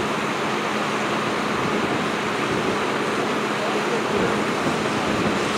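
Fire hose spraying water onto the asphalt roadway in a steady rushing hiss, over the fire truck's steady engine hum.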